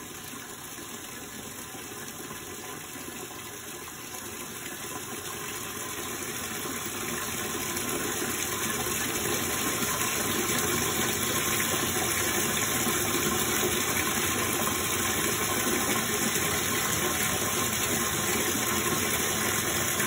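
A tap's stream of water pouring into a tub of standing water: a steady splashing rush that grows louder over the first several seconds, then holds.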